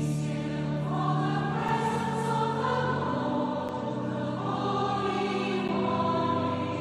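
Sacred choral music: a choir singing slow held notes over sustained organ chords, the higher voices swelling in about a second in.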